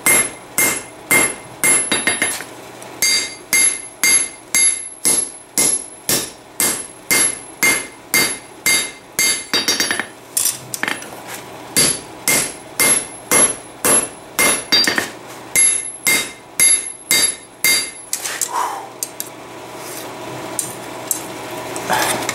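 Hand hammer striking a red-hot rasp-steel blade on an anvil, about two to three blows a second, each blow followed by a high metallic ring from the anvil. The blows thin out for a few seconds near the end, then start again.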